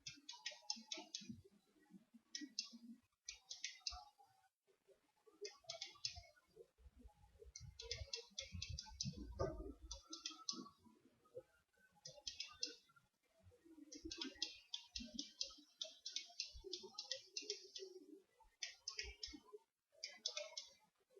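Faint rapid clicking in repeated bursts of several clicks each from a 4Sevens Preon 2 penlight, worked over and over to cycle through its modes in an attempt to reach the strobe setting.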